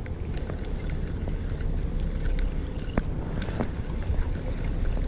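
Steady low rumble of a charter fishing boat's engine running at sea, mixed with wind on the microphone, with scattered light clicks and taps.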